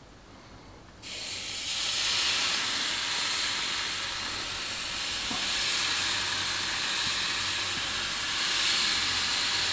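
Marinated skirt steak skewers sizzling on a hot charcoal grill grate. The hiss starts suddenly about a second in as the first skewer goes down and then runs on steadily as more are added.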